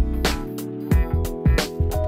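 Background music: sustained chords over a steady drum beat.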